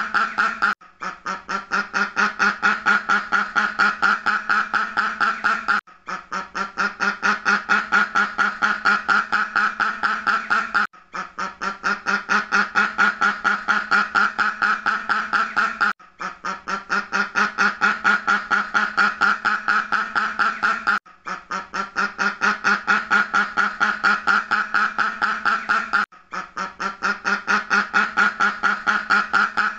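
Duck quacking in a rapid, unbroken run of quacks. It is a recording of about five seconds looped over and over, with a brief break at each repeat.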